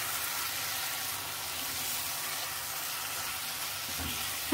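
Sliced carrots, green capsicum and onion frying in a thick tomato base in a non-stick pan, with a steady, gentle sizzle.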